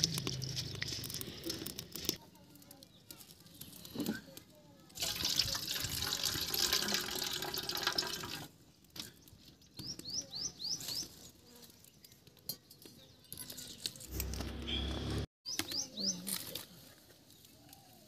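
Water sloshing and pouring as red lentils are washed by hand in a steel plate, the loudest stretch a few seconds in. A few short, high, rising chirps come later.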